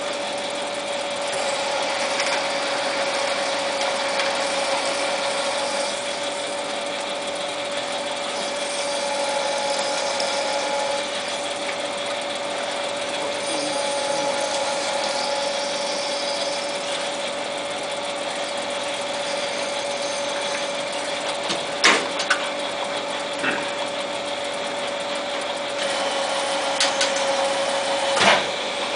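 Small Jet TL-25 turret lathe running, with a steady whine and machine noise. A few sharp knocks come in the later part, one of them near the end.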